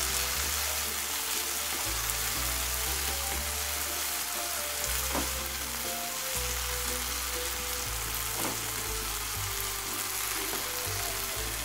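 Chopped onion and tomato masala sizzling steadily in oil in a non-stick kadai while a wooden spatula stirs and scrapes through it, being fried down until the oil separates. A couple of slightly sharper scrapes come about five and eight seconds in.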